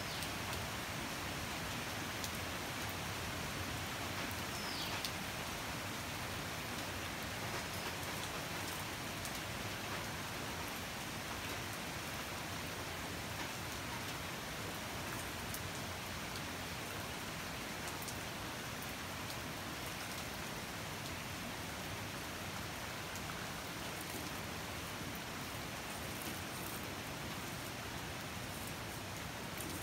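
Steady rain falling on dense leafy vegetation: an even hiss with scattered drop ticks. A brief faint falling whistle comes about five seconds in.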